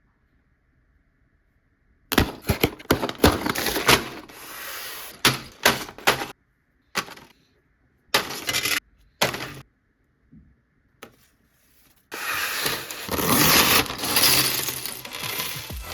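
Plastic LEGO pieces and packaging being handled, clattering and rustling in short bursts with sharp clicks. The bursts are broken by abrupt dead-silent gaps, and a longer rustle runs from about twelve seconds in.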